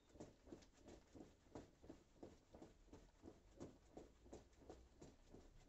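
Faint, soft footfalls on foam exercise mats as mountain climbers are done at a steady pace, about three to four light taps a second.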